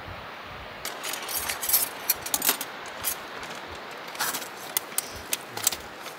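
Small metal items clinking and rattling as they are handled: a quick, irregular run of light clinks starting about a second in, over steady wind noise on the microphone.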